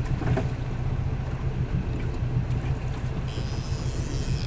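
Boat engine running steadily with a low drone. About three seconds in, a high-pitched buzz joins it for a second and a half.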